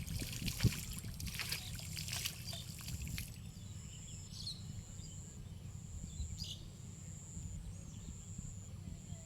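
Water splashing and dripping for about three seconds, with a sharp thump near the start. After that comes quieter outdoor ambience with a steady high-pitched tone and a few short bird chirps.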